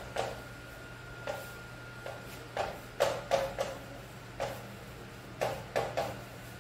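Chalk writing on a chalkboard: about a dozen short, irregular scratchy strokes and taps as letters go up, over a steady low hum.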